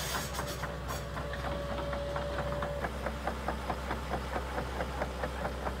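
Tracked excavator's diesel engine idling with a steady low hum and a regular clatter of about five ticks a second. A thin steady whine sounds over it through the first half.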